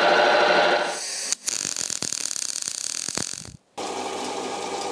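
Small benchtop metal lathe running and turning a steel bar, a steady motor hum that gives way to a brighter, scratchy ticking. After a sudden break, a drill press runs as its bit bores a hole through a steel pin.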